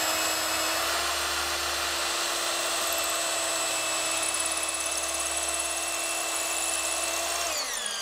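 Electric drill running steadily at speed, boring a pilot hole up through the wooden double top plates into a floor joist. Near the end the trigger is released and the motor winds down, its whine falling in pitch.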